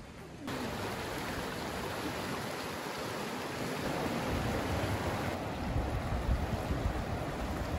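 Fast-flowing shallow river rushing over stones: a steady wash of water that starts abruptly about half a second in. A low, uneven rumble joins in the second half.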